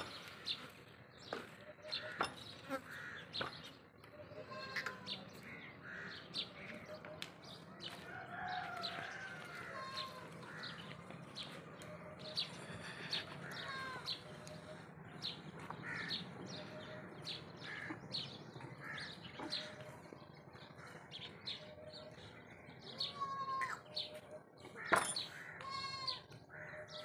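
Small birds chirping in short, repeated notes and little rising and falling calls, with scattered short clicks and knocks throughout.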